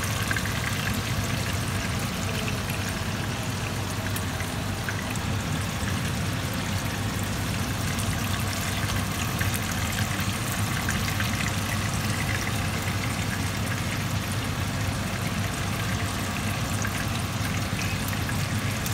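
Mackerel steaks shallow-frying in hot oil in a pan: a steady sizzle thick with fine crackles, over a low steady hum.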